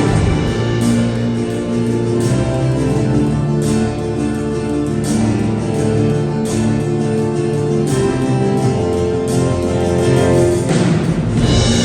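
A band playing, led by guitar, with sustained notes over a slow, steady beat.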